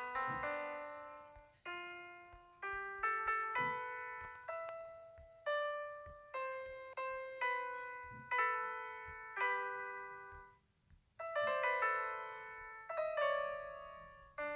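Background piano music: struck notes and chords that ring and fade in a slow, gentle run, with a short break about eleven seconds in.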